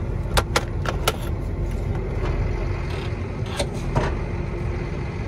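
John Deere 7820 tractor's diesel engine running under way, heard from inside the cab as a steady low rumble with a faint steady tone over it. A few sharp clicks come about half a second to a second in, and two more near the end.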